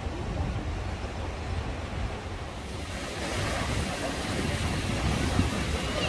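Sea surf washing over a rocky shore, with wind buffeting the microphone as a low rumble. The hiss of the surf grows louder about three seconds in.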